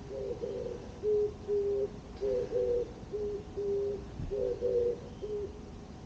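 Dove cooing: a string of short, low coos at two pitches, about two a second, some overlapping.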